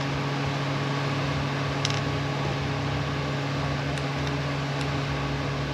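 Steady low hum of a running fan, with a few faint light clicks from small parts being handled.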